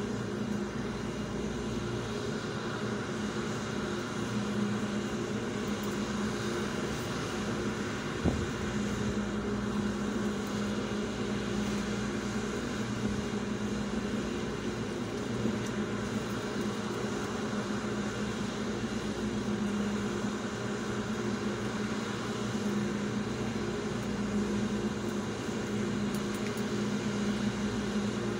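Steady low mechanical hum of a running motor, with one short knock about eight seconds in.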